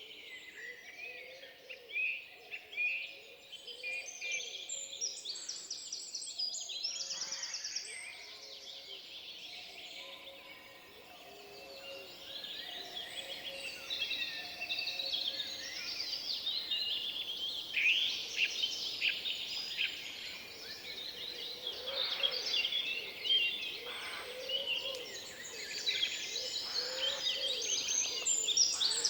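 Forest bird chorus: many songbirds singing at once, with overlapping chirps and rapid trills. Lower, wavering calls sound underneath.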